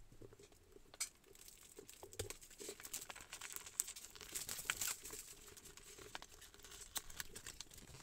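Plastic wrap crinkling and tearing and cardboard rustling as a shrink-wrapped box is unwrapped and its flaps opened: a run of small crackles and ticks.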